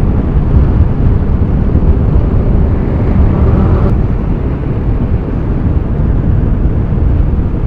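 Wind rumble on the microphone and motorcycle running noise while riding at highway speed: a steady low, dense roar.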